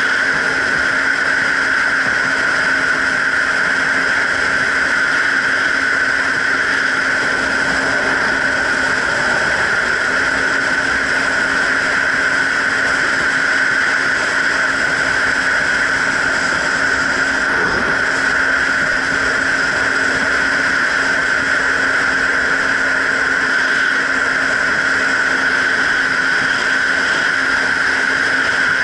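Jet ski engine running steadily under way, a constant hum over rushing water and wind. The engine note dips briefly about nine seconds in, then steadies again.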